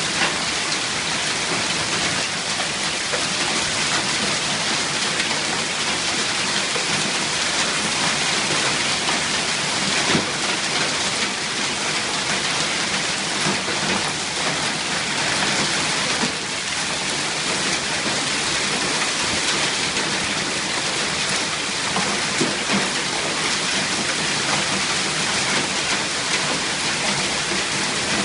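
Heavy hail, mixed with rain, pelting down steadily on the surfaces around, a dense unbroken din of impacts with a few louder single hits.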